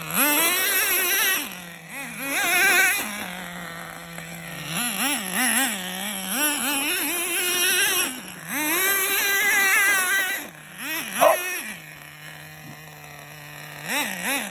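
Small nitro RC engine in a Traxxas Rustler, idling steadily and revving up and back down in several throttle bursts. It runs on 20% nitro fuel, which the owner finds runs a little rich. One short sharp sound stands out about two-thirds of the way through.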